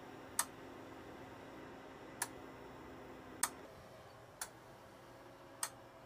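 De Dietrich DTI701 induction cooktop with both cooking zones heating: its electronic relay clicks sharply five times, at uneven gaps of about one to two seconds, over a faint steady hum from the hob that changes pitch about three and a half seconds in. The clicking happens only while both zones run at the same time, and the owner is unsure whether it is normal.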